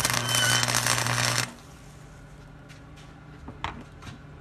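Wire-feed welder arc crackling for about a second and a half over a steady hum, then cutting off sharply as the trigger is released; it is welding a nut onto the built-up weld pile on a broken stud. A couple of faint clicks follow near the end.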